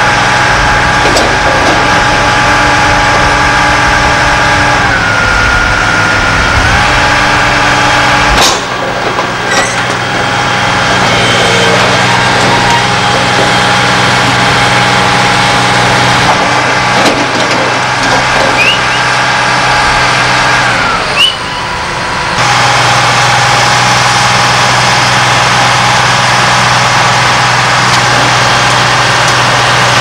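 Heavy diesel engines of construction machinery running steadily. The engine note drops and comes back up about a fifth of the way in. The sound changes abruptly twice, once a little under a third of the way in and again about three quarters through.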